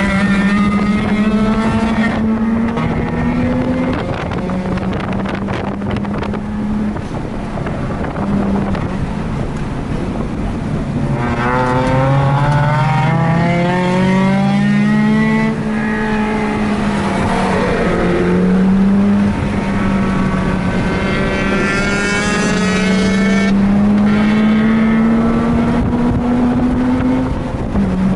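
Mazda RX-8's two-rotor rotary engine under hard acceleration on track. Its pitch climbs through each gear and drops sharply at the shifts several times, over wind noise on the microphone.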